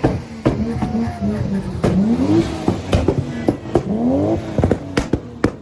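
A car engine revved hard several times in a row, its pitch climbing and dropping back with each blip, with sharp exhaust pops and bangs cracking between the revs.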